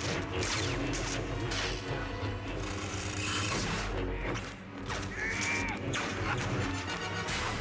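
Lightsaber duel sound effects: repeated sharp clashes and swings of the blades over a dramatic film score.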